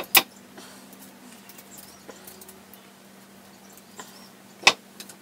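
Light handling noises at a workbench as a small wooden model frame and hand tools are picked up and set down: two sharp taps, one just after the start and one near the end, with faint small clicks between over a low steady hum.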